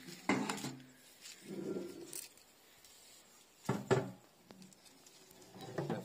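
Knocks and clatter of gear being handled in a metal truck bed, with two sharp knocks near the start and about four seconds in.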